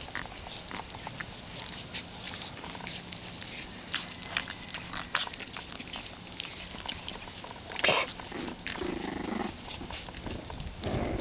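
26-day-old boxer puppies play-fighting in grass: scuffling and rustling with small puppy grunts and growls, and one louder sharp sound about eight seconds in.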